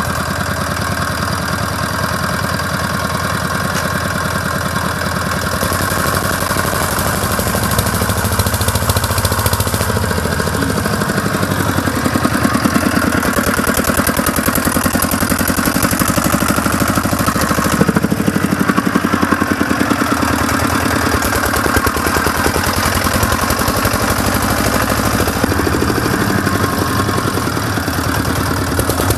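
Quad bike engine running with rapid, even firing pulses, its speed rising and falling a little.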